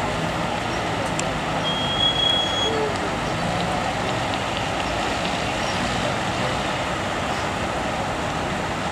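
Unimog diesel engine running under load as the truck crawls up a steep, rutted dirt climb. A brief high steady tone sounds for about a second, around two seconds in.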